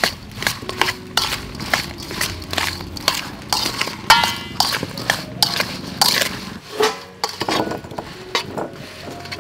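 A metal spoon scraping and clinking against a metal bowl as salak fruit is tossed in chili-salt, in quick repeated strokes about two or three a second, with one ringing clink about halfway. Near the end the strokes give way to duller knocks as the coated fruit is tipped into a ceramic bowl.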